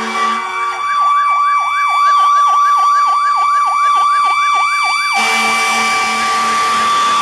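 Fire engine sirens: an electronic siren in a fast yelp, about three to four sweeps a second, over a steady high siren tone. About five seconds in the yelp stops and a harsh, low blare, typical of a fire truck's air horn, sounds over the steady tone.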